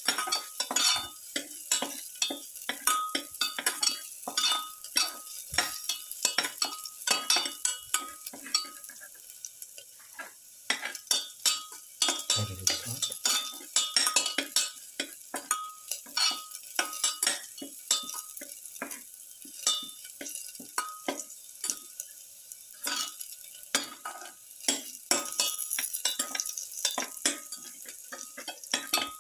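A spatula stirring whole garlic cloves and shallots as they sauté in a little oil in a stainless steel pan. It makes quick, irregular scrapes and knocks, several a second, and the pan rings briefly at each knock, over a light, steady sizzle.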